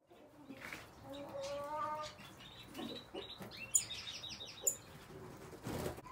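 Aviary birds calling: a low cooing call about a second in, then a run of quick, high chirps, and a short flutter of wing flaps near the end.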